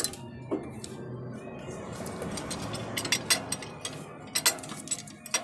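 Metal clinking and rattling as a C-clamp and hand tools are handled at the brake caliper, with a cluster of sharp clicks about three seconds in and another near the end.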